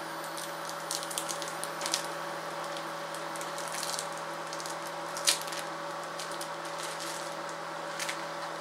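Light, scattered clicks and taps of a knife and fingers working raw chorizo out of its casing on a wooden cutting board, with one sharper tap about five seconds in, over a steady electrical hum.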